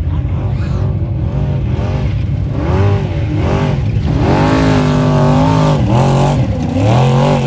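A desert race truck's engine revving hard, its pitch climbing and dropping again and again with the throttle. It grows louder in the second half and holds one long high note in the middle.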